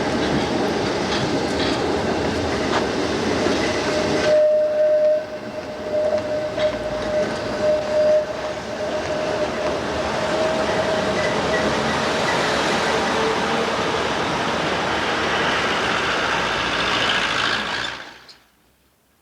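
Tram running along a street track, with a steady high wheel squeal that starts about four seconds in and fades after several seconds. The sound cuts off shortly before the end.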